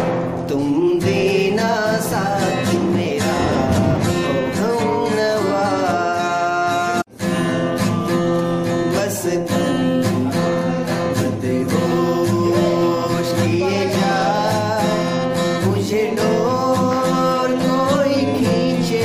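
Acoustic guitar played with male voices singing along, a slow old Hindi film song. The sound cuts out completely for a split second about seven seconds in.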